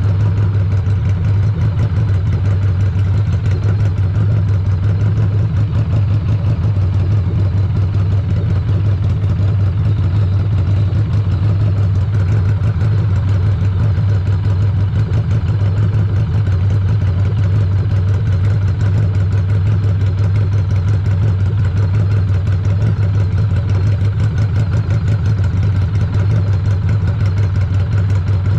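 Cruiser motorcycle engine idling steadily on its stock exhaust, an even low hum with no revving.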